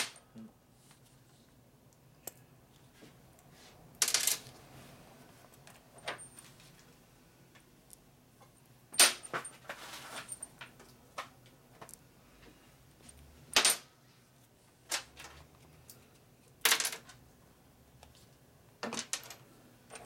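Metal engine parts and hand tools clinking and clanking as they are handled and set down during motorcycle engine assembly: about ten short, sharp metallic clinks scattered irregularly, over a faint steady hum.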